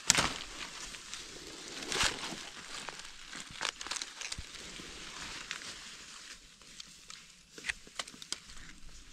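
Dry leaf litter and twigs rustling and crackling under a gloved hand reaching in to pick a red-capped mushroom from the forest floor, with several sharp snaps and crackles along the way.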